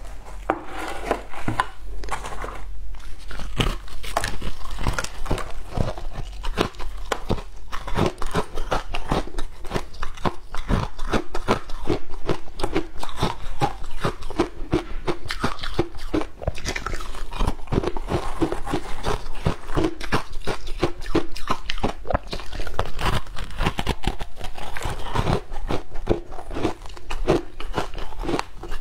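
Frosted ice chunks crunched and chewed close to a clip-on microphone: a dense, continuous run of sharp cracks and crackles as the ice breaks between the teeth.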